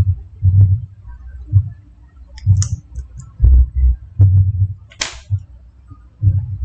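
Irregular dull low thumps picked up by the microphone, about a dozen of them, with a short hiss about five seconds in.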